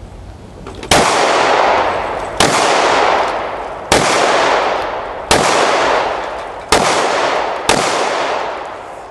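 Six gunshots fired at a steady pace, about one every second and a half. Each shot leaves a long fading ring.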